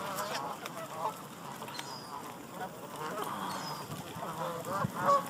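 A large flock of Canada geese calling, many short overlapping calls, with one louder call near the end.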